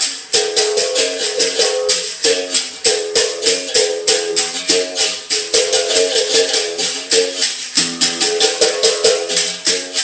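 Capoeira music: a berimbau struck in a quick steady rhythm with the rattle of a caxixi shaker on each stroke, its note switching between a low and a higher pitch.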